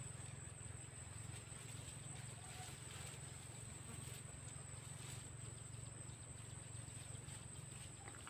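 Faint, steady, high-pitched insect drone, cricket-like, over a low steady background hum, with a few soft rustles.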